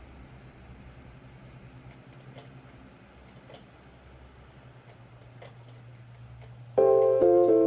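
A faint, steady low hum with a few soft clicks, then background piano music starts loudly near the end.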